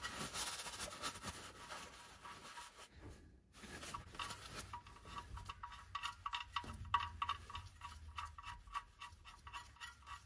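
Paper towel rustling against the oil pan as it wipes oil drips from around the drain bolt, then faint irregular clicking and rubbing as the drain bolt is turned in by hand with the towel held around it.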